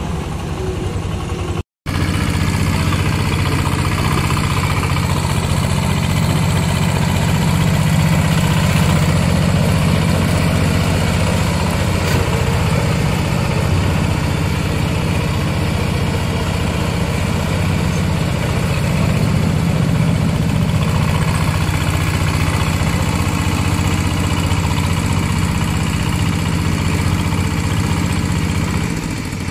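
Single-cylinder Changchai diesel engine of a tracked mini dumper running steadily as the machine drives across rough grass. The sound cuts out briefly about two seconds in, then resumes, and eases off slightly near the end.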